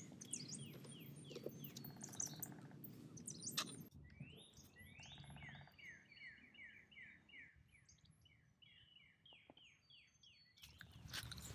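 Faint birdsong: a songbird repeating phrases of quick down-slurred whistled notes, several a second, over a soft outdoor background hiss in the first few seconds.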